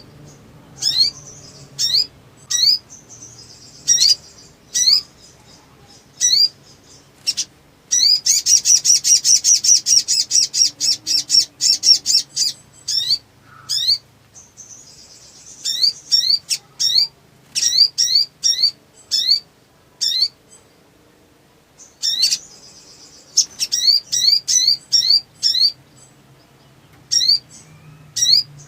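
Sogon (sogok ontong) bird singing energetically: a string of sharp, high, upward-sweeping chips, breaking about 8 seconds in into a rapid trill of some four seconds, then more quick runs of chips.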